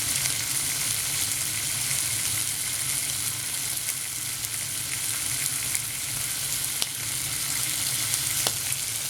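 Bacon sizzling steadily in a frying pan, with a few sharp pops of fat, two of them near the end.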